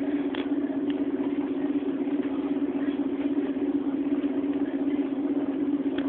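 Volvo Olympian double-decker bus's diesel engine running with a steady, even drone, heard from inside the upper deck, with a few faint clicks.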